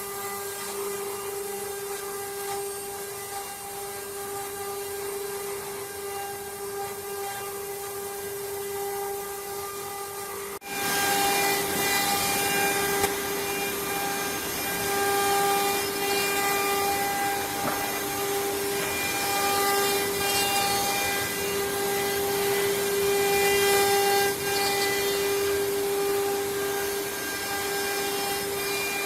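CNC wood router's spindle running with a steady whine while the bit cuts into wood with a rasping noise. The sound breaks off abruptly about eleven seconds in and comes back louder.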